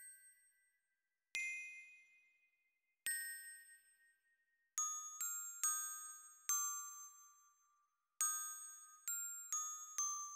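Glockenspiel melody from notation-software playback: single bright, ringing notes with long decays. Two notes come alone, well apart, then two quicker groups of notes follow with a short gap between them.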